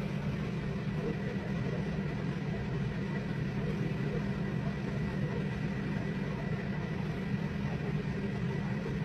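A steady low mechanical hum with a faint thin high whine running through it, unchanging throughout.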